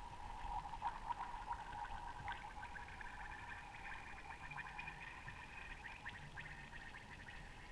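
Thin lake ice near the shore ticking and crackling over a faint, steady ringing tone.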